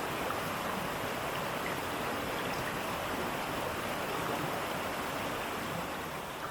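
Water rushing and splashing over rocks at a waterfall: a steady, even rush with no break.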